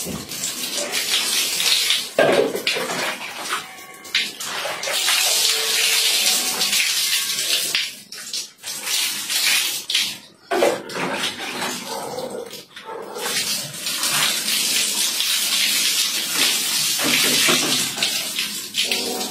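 Water poured from a plastic dipper (tabo) splashing over a person and onto a tiled bathroom floor, in repeated pours broken by short pauses to scoop more from a bucket.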